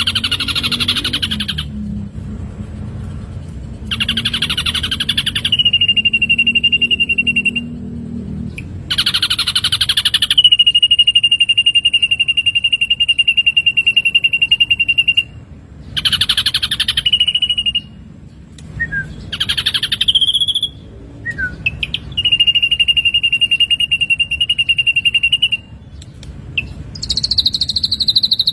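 Ashy drongo song: harsh, rapid chattering phrases, several of them running straight into a long, steady whistle held for a few seconds. Near the end comes a higher note that slides down.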